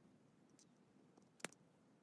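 Near silence, broken by a few faint clicks and one sharp little click about one and a half seconds in, as small brass oil can parts and a thin tool are handled.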